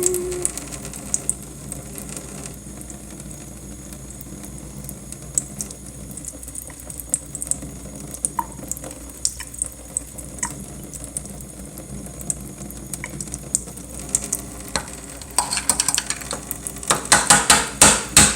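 Hot water running from a kitchen tap over a frozen treat container held under it to loosen the treat, with scattered small clicks and knocks from the container. The water gets louder in the last few seconds.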